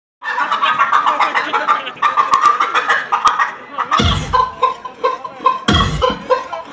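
Dance song played loud for a dancer: a busy first half, then from about four seconds in a deep bass hit every second and a half or so under short repeated pitched notes, a clucking-like sound effect.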